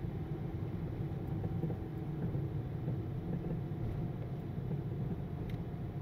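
Car driving at a steady speed: a low, even rumble of engine and tyre noise.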